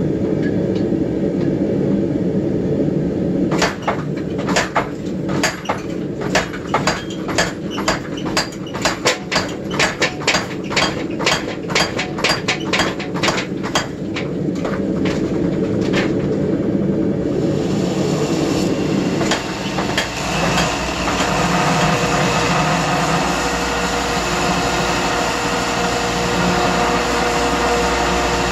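Treadle hammer striking hot steel, a run of blows about two or three a second lasting some fifteen seconds, flattening out the cross-peen hammer marks on a forged tomahawk head. Under it the forge burner keeps up a steady low rumble. After the blows stop, a steadier, hissier running noise takes over.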